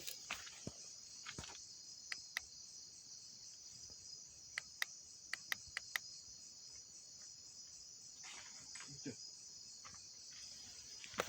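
Steady, high chorus of night insects, crickets by their sound, with scattered sharp clicks and soft rustles.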